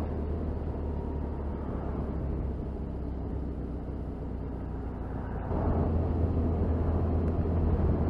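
Onboard sound of a motorcycle being ridden: steady engine and wind noise, easing off in the middle as it slows through a junction, then getting louder about five and a half seconds in as it picks up speed.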